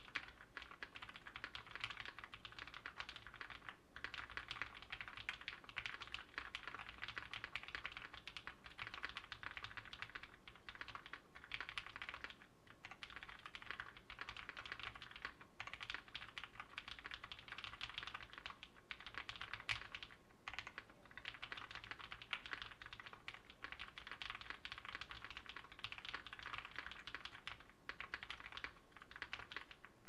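Steady, rapid typing on a Daji Seis Cinco 65% mechanical keyboard built with Greetech Brown tactile switches on an aluminium plate, foam in the case, and GMK Dracula keycaps, with a few brief pauses.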